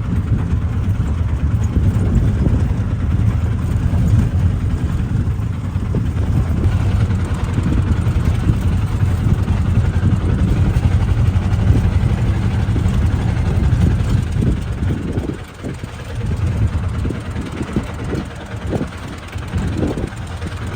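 A vehicle running on the road: steady low engine and road rumble, a little quieter and more uneven for the last few seconds.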